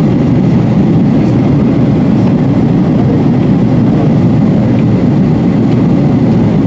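Cabin noise inside a Boeing 737-800 in flight: a steady, loud rumble of engine and airflow noise.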